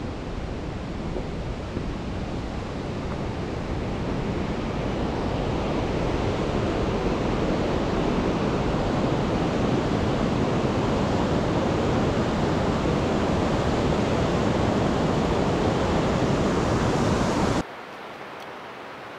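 Rushing mountain river water, a steady noise that grows louder over the first several seconds and drops off sharply near the end.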